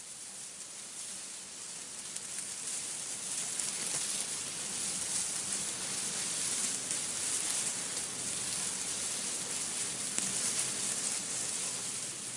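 Wind rustling through tree leaves: a steady hiss of foliage that swells over the first few seconds as the gust builds, then holds.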